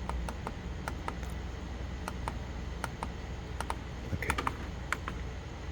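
Plastic buttons on an Epson ET-2760 printer's control panel clicking as they are pressed, a dozen or so irregular presses, over a low steady hum.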